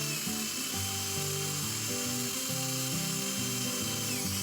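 Electric drill running steadily as it bores a hole into a red oak board, over background music.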